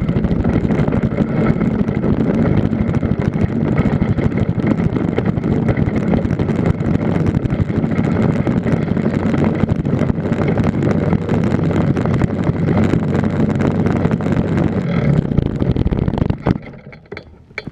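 Solo 210 cc two-stroke engine of a mini ultralight trike running steadily, with wind buffeting the microphone. The engine sound stops suddenly near the end, followed by a few clicks.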